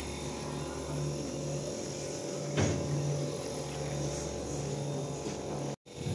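An engine running steadily with a low hum, with one short knock about two and a half seconds in; the sound cuts out abruptly for a moment near the end.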